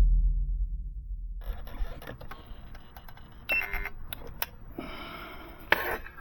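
A deep music note fading out, then after a short hush a scatter of small sharp clicks and clinks, as of small hard parts or tools being handled, with a louder clatter near the end.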